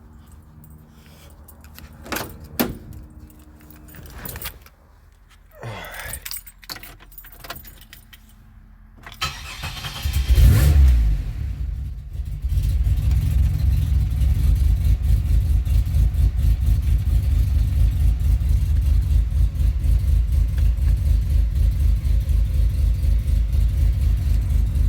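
Keys jangling and a few clicks, then about ten seconds in the 2007 Pontiac Grand Prix GT's V6 cranks and fires, flaring loudly for a moment before settling into a steady idle. It starts now that the missing PCM fuse has been fitted.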